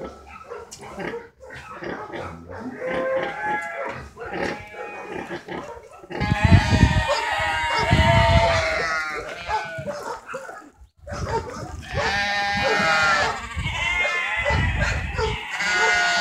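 Several young farm animals bleating: long, wavering calls, scattered and quieter at first, then loud and almost continuous from about six seconds in, with a short break near the middle.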